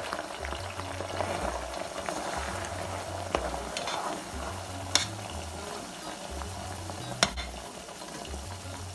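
Chunks of goat meat deep-frying in hot coconut oil in a pot, sizzling steadily as they are stirred with a plastic slotted spatula, with a few sharp clicks along the way.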